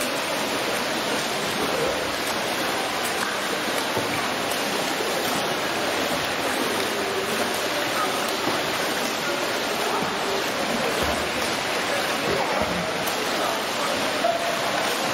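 A swimmer's front crawl arm strokes and kicks splashing in a pool: a steady wash of churning water.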